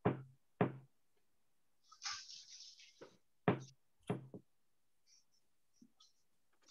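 About five separate knocks and thumps of objects being handled on a wooden table, with a brief rustle or scrape about two seconds in.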